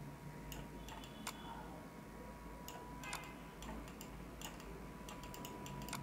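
Faint computer mouse clicks, about ten of them, irregularly spaced, over a faint steady whine and low hum.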